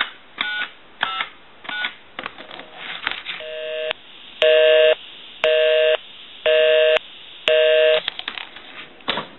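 Pottery Barn Grand Phone's touch-tone keypad dialing the last four digits, followed by a telephone busy signal: five evenly spaced beeps, about one a second. The line is busy because the phone is calling its own number, which shows that the repaired phone dials out correctly.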